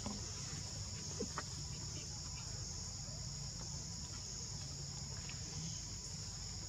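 Steady, high-pitched chorus of insects over a low background rumble, with a faint click or two a little over a second in.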